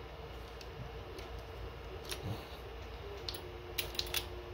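Small plastic clicks and taps as a plastic accessory clip is handled on a DeWalt gyroscopic screwdriver and a hex bit is tried in it. The clicks are scattered, with a cluster of sharper ones in the second half, over a faint steady hum.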